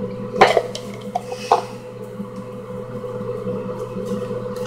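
Handling noise: two short rustling clicks, about half a second and a second and a half in, over a steady faint electrical hum.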